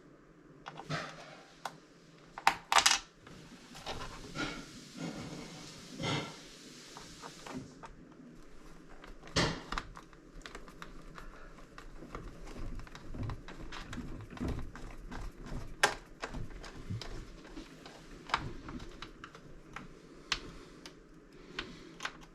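Screws being driven into a Roomba's plastic bottom cover with a hand screwdriver: scattered clicks and taps of the screwdriver and the plastic housing being handled, with a short run of louder clicks about two and a half seconds in.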